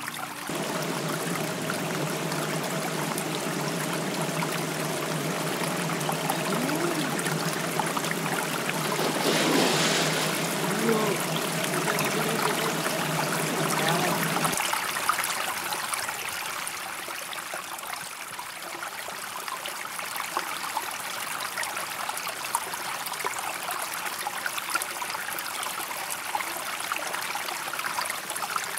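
Running water rushing steadily, as from a stream or falls.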